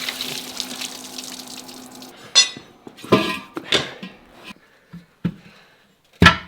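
A rushing hiss with a faint steady hum for about two seconds, then a series of sharp, ringing clanks, about six in all, like metal objects being knocked together.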